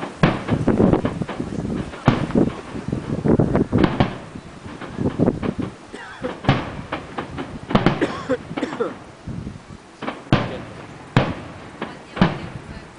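Aerial fireworks shells bursting in an irregular string of bangs, each trailing off in a rolling echo, with quicker clusters of cracks in between.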